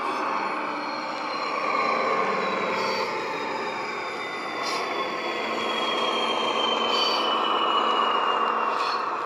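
Model Class 41 diesel-hydraulic locomotive's DCC sound decoder playing a diesel engine working under power through the model's small speaker, with a thin whine slowly falling in pitch and a few faint clicks. It grows louder as the locomotive approaches, loudest about eight seconds in.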